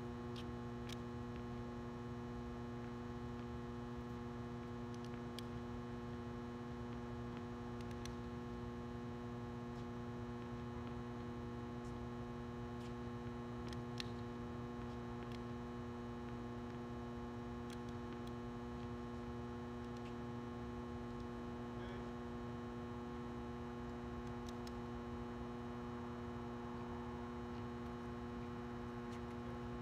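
Steady electrical mains hum: a low drone with several evenly spaced higher tones above it, unchanging throughout. A few faint sharp ticks stand out now and then, the clearest about 14 seconds in.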